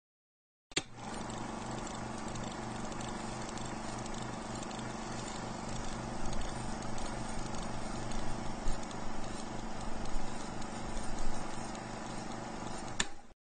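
Film projector sound effect: a steady mechanical rattle and whir with hiss, cutting in with a click about a second in and cutting off with a click near the end.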